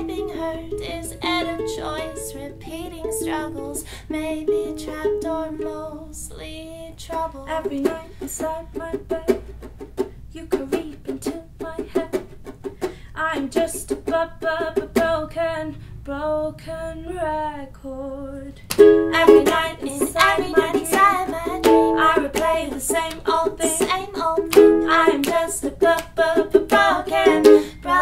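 Ukulele strummed with female voices singing along. The strumming eases off for a couple of seconds about two-thirds of the way through, then comes back louder.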